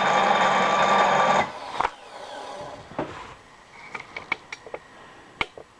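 A milling machine's motor runs loudly and steadily, then stops about a second and a half in. After it come a few soft knocks and then a quick series of light metallic clicks and ticks as the tooling is handled.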